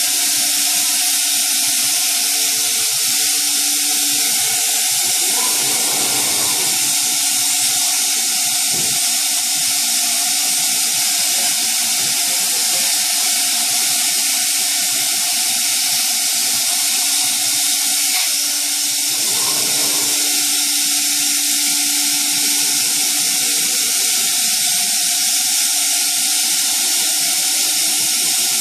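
Thermwood C67 five-axis CNC router running as its head traverses: a loud, steady hiss with a low steady hum, shifting briefly twice, about six and twenty seconds in.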